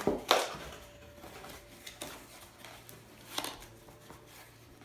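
A cardboard box being opened by hand: a sharp scrape of cardboard flaps just after the start and another about three and a half seconds in, with soft rustling of the packed contents between.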